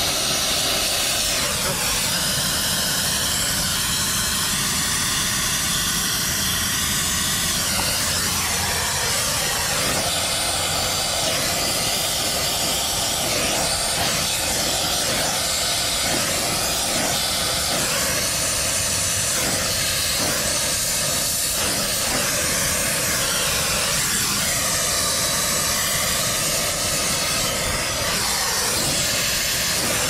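Oxy-acetylene brazing torch flame hissing steadily while a copper refrigerant line is brazed to the condenser's service valve.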